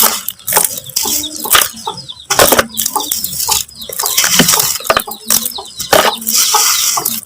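Dried mud crumbling and crunching, with dense crackles and many sharp snaps as the clods break apart.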